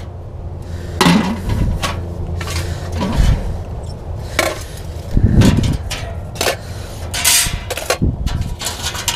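Sheet-metal parts of a homemade wood stove clanking and scraping as stovepipe sections and other pieces are pulled out of its firebox and set on top: irregular metallic knocks and clatters.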